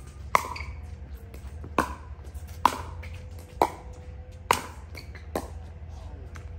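Pickleball rally: paddles striking the hard plastic ball, six sharp pops about a second apart, the last one softer.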